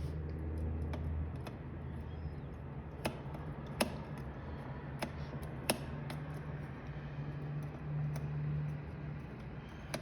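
A steady low hum with a few light clicks and taps spread out, from a circuit board, component leads and hand tools being handled during through-hole soldering.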